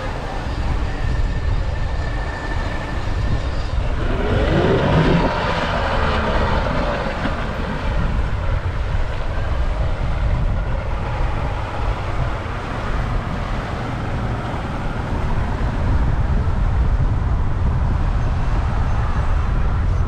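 Wind buffeting the microphone as a steady low rumble over outdoor beach ambience. About four seconds in, a pitched sound rises and bends for two or three seconds.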